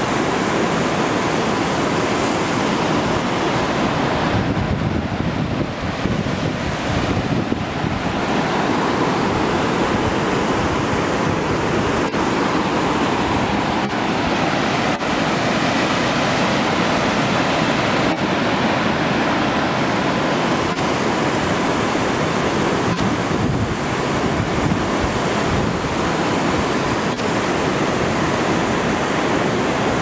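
Upper Glen Alpine Falls: a steady, loud rush of water cascading over granite boulders and ledges.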